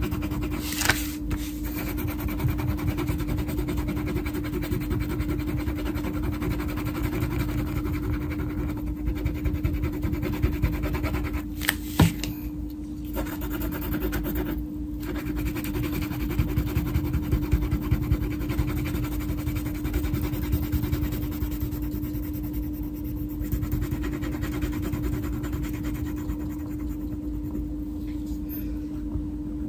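Wax crayon scribbling on a colouring-book page as an area is filled in, over a steady low hum. Two short sharp taps come about a second in and about twelve seconds in.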